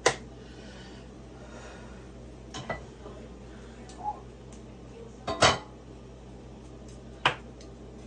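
Clatter of a bamboo steamer being handled at the stove: a knob click, the lid taken off and set down, and chopsticks knocking against the basket, a handful of separate knocks and clacks with the loudest a little past the middle. A steady low hum runs underneath.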